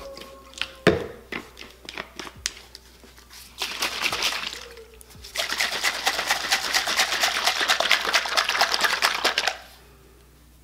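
Rubbing alcohol and aloe vera gel sloshing in a plastic bottle as it is shaken hard to mix them into hand sanitizer. The shaking is a fast, even rhythm lasting about four seconds from around the middle, with a shorter burst just before it. Light clicks and knocks of the bottle and jug being handled come first.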